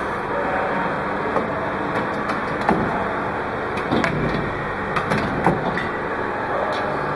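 Automatic CO2 cylinder filling machine running: a steady mechanical noise with irregular sharp clicks and knocks as the filling heads handle the cylinders.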